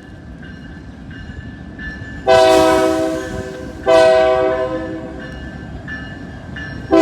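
Horn of Union Pacific SD40 locomotive 1178 sounding two long blasts as a salute, the second starting right as the first ends and fading off, with a third beginning at the very end. Under it runs the low rumble of the passing work train.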